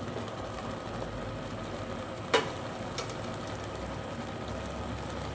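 Stew simmering in a stainless steel pot on an induction cooktop, a steady hiss of bubbling, with one sharp metallic clink a little over two seconds in and a fainter tick about a second later.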